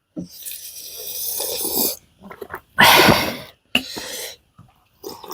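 A person breathing hard through the mouth with the burn of a raw green chilli: a long hissing breath, then a loud sharp gasping exhale about three seconds in and another right after.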